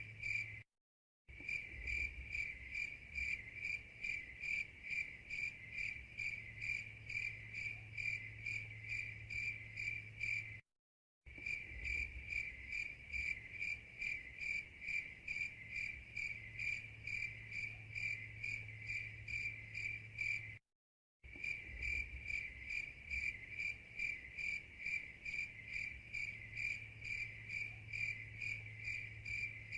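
Crickets chirping in a rapid, even rhythm, as a looped recording that drops to dead silence for about half a second at the loop point, twice.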